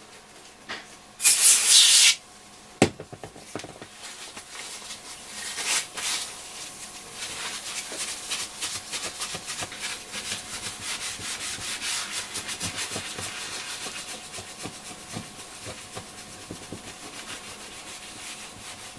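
A short hiss of aerosol foam cleaner sprayed about a second in, then a cloth rubbing steadily and quickly over the radio's case to scrub off the dirt.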